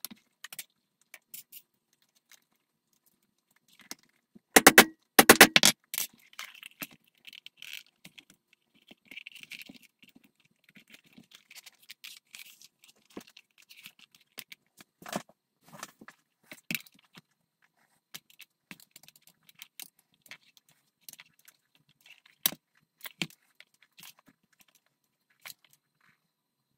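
Leatherworking tools and metal buckle and rivet hardware clinking and tapping on a stone worktop, with a loud quick run of sharp metallic clicks about five seconds in and scattered lighter taps and scrapes after.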